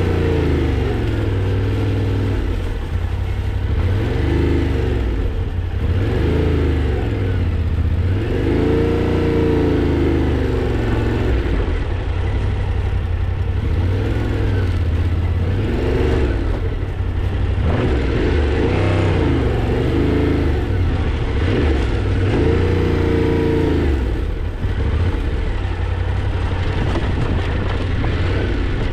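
Yamaha Ténéré 700's parallel-twin engine running under way, its pitch rising and falling every few seconds as the throttle is rolled on and off.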